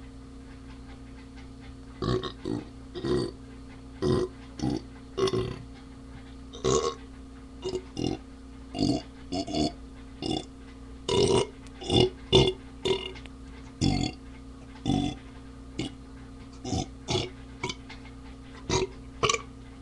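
A person burping a long run of short, quick burps, some single and some in quick clusters of two or three, beginning about two seconds in. A steady low hum runs underneath.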